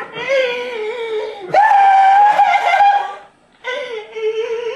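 A young man wailing in exaggerated mock grief: three long, wavering cries, each held for over a second, the middle one the loudest.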